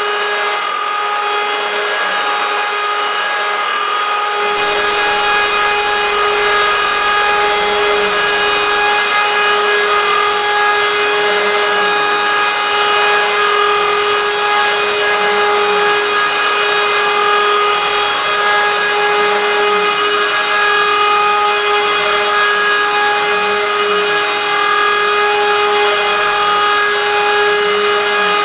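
CNC router spindle whining steadily as an end mill cuts 6061 aluminium. The cutting load rises and falls about every two seconds.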